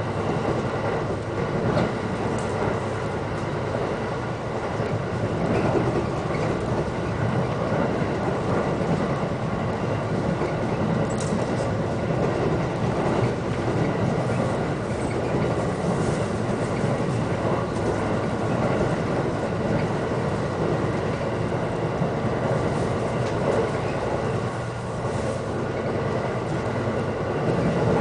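Electric commuter train running at speed, heard inside the carriage: a steady rumble of wheels on rail with a constant hum and a few faint clicks from the rail joints.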